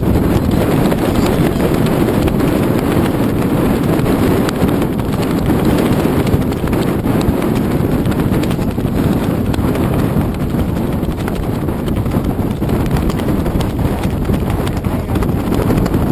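Wind buffeting a GoPro camera's microphone: a steady, loud rumble with scattered small knocks.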